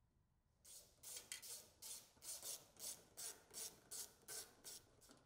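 Ratchet wrench with a T40 Torx socket swung back and forth to back out a dashboard fastener: a faint, even run of short rasping ratchet clicks, about three strokes a second, starting about a second in.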